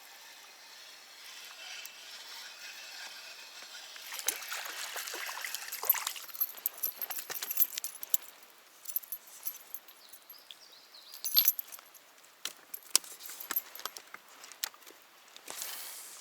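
Irregular sharp clicks and light metallic rattles of small gear being handled, with a brief rustling rush about four seconds in.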